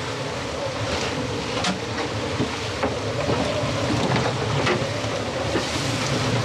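Strong wind and sea noise aboard a small sailboat in a gale, with wind buffeting the microphone. A steady tone runs underneath, and scattered short knocks sound through it.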